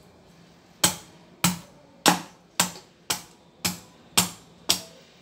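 Eight sharp strikes on the hard shell of a small dwarf coconut, about two a second, as it is hacked open for its water.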